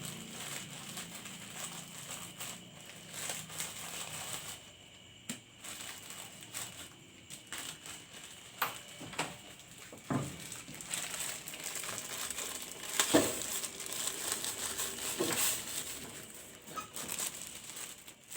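Plastic instant-noodle (mie goreng) packet crinkling and rustling as it is handled and opened, with scattered sharp crackles.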